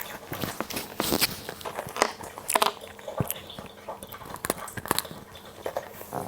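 Close-up crunching of Cookie Pepero chocolate-coated biscuit sticks being bitten and chewed: irregular sharp crunches and crackles, several a second.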